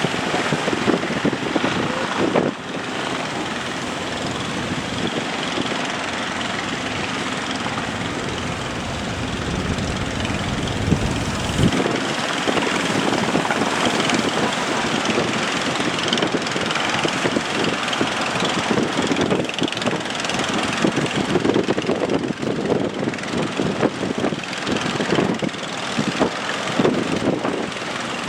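A fishing boat's engine running steadily, with strong wind buffeting the microphone.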